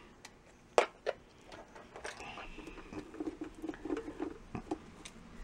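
Hand screwdriver backing small screws out of a DenGaWa R200 power bank's plastic case, a quick run of short squeaky scratches from about three seconds in. A sharp click about a second in is the loudest sound.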